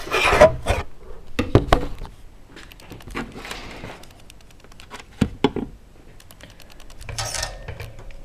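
Irregular clicks and light knocks of hands handling an Amiga 500 RAM expansion board and its wires and setting it down on the computer's plastic case, with sharper knocks in the first two seconds and a few more about five seconds in.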